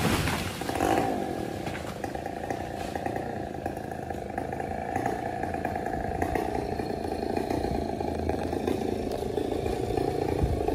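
A two-stroke chainsaw comes off full revs in the first half second, then idles steadily at a lower level.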